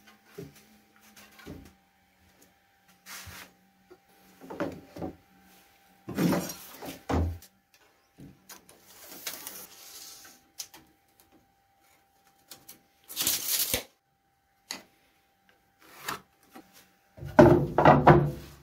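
Workshop handling noises: wooden boards knocking and rubbing as one is pulled from a stack. Near the end comes a run of louder knocks and sliding as a wooden crosscut sled is pushed along the metal table saw top.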